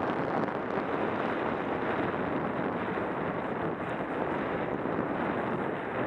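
Steady rush of wind buffeting an action camera's microphone while skiing downhill, mixed with the hiss of skis sliding over groomed, packed snow.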